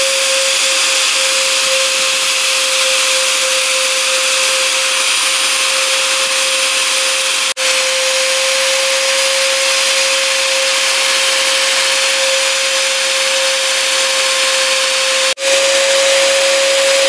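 SM B100 electric ULV cold fogger running, its blower motor giving a steady high whine over a rushing airy hiss as it sprays mist. The sound drops out briefly twice and comes straight back.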